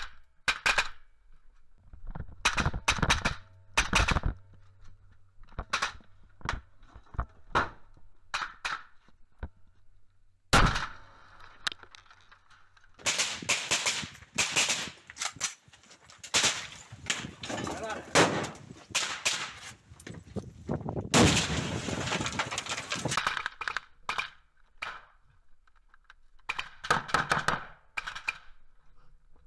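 Close-range gunfire from rifles: single shots and short bursts, turning into heavy, near-continuous firing for a long stretch in the middle.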